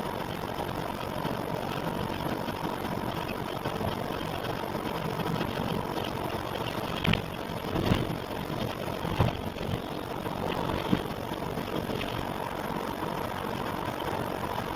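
An engine or motor running steadily with a faint steady whine, and a few sharp knocks in the middle: the abnormal noise that the recording is made to capture.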